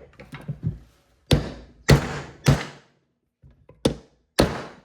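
Hammer blows on a socket used as a drift to drive a part out of a bearing in a Polaris front differential housing: a few light taps, then five heavy metallic thuds about half a second to a second apart.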